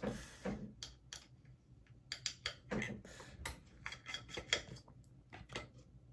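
Irregular light clicks and taps from fingers handling the opened metal case of a small Thunderbolt dock, around its fan board, connector and blower fan.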